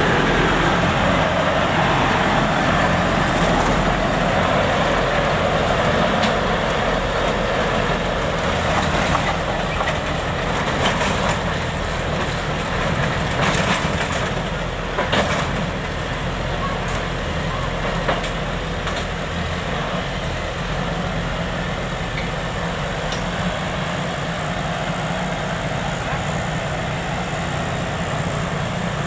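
Rice combine harvester's diesel engine running loud through its exhaust as the machine drives up onto a trailer, with a few short knocks about halfway through.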